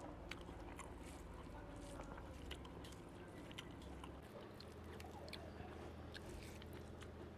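Faint, scattered small clicks of a hand mixing rice, noodles and chicken curry on a steel plate.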